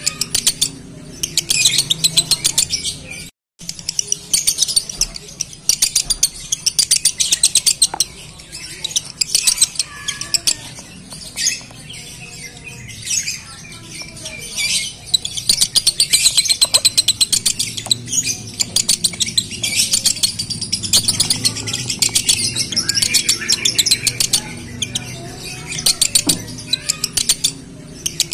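Male Fischer's lovebird singing its 'konslet' song: long runs of very rapid, high chattering ticks and chirps, broken by short pauses. The sound cuts out completely for a moment about three seconds in.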